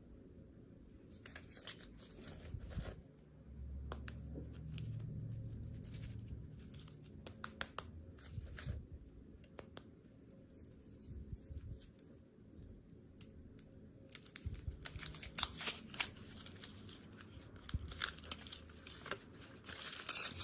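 Packaging being handled and unwrapped: a candy wrapper crinkling and tearing in irregular bursts, with small clicks and taps in between.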